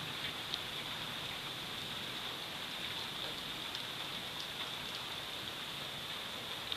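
Steady rain falling during a thunderstorm, an even hiss with a few sharper drop ticks here and there; no thunder.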